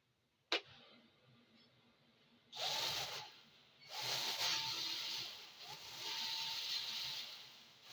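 Small toy drone's motors and propellers spinning up in three separate runs, each with a rising whine that settles into a steady whirr, a sharp click coming first.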